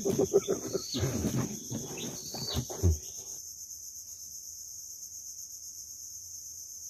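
A steady, high insect chorus from the mangroves runs throughout. For about the first three seconds it is overlaid by irregular knocks and handling clatter in the boat, after which only the insects remain.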